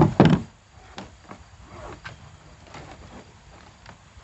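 Two loud knocks right at the start, then scattered light clicks and taps from hands handling wire, fittings and tools while working on a plastic kayak.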